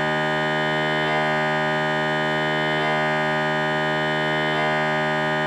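MRI scanner running a conventional, non-quiet scan sequence: its gradient coils give out a loud, steady buzzing tone with many overtones.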